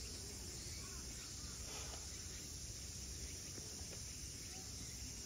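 Steady high-pitched insect chorus from the summer vegetation, with a low steady rumble beneath it.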